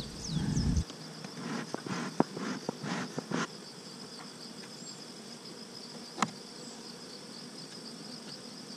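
Honey bees buzzing around an opened hive under a steady high insect hum. A dull rumble in the first second is followed by a run of sharp wooden and metal clicks and knocks over the next few seconds as frames and a metal frame perch are handled. One more click comes about six seconds in.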